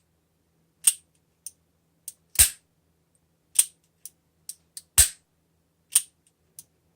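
Ruger LCR .38 Special revolver dry-fired double action: two sharp snaps as the hammer falls, about two and a half seconds apart, with several lighter clicks of the action between them.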